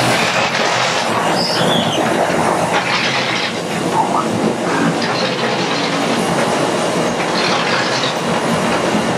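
Inclined chain-and-flight coal conveyor running, carrying coal up to a steam locomotive's tender: a steady, loud clattering din with a few short squeaks.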